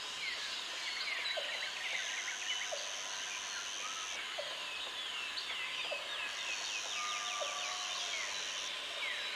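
A chorus of many birds chirping and calling over one another in quick, falling notes. A steady high-pitched buzz comes in twice, each time for about two seconds.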